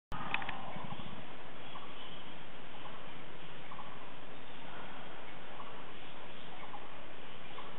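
Steady hiss of forest ambience with a few faint, short sounds scattered through it and a brief cluster of clicks just after it starts.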